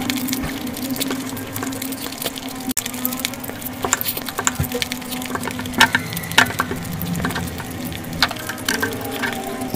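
Close-miked eating sounds: wet chewing and lip smacks, with fingers wiping rice and gravy from a plate, a stream of small sticky clicks and crackles. A low steady tone runs underneath.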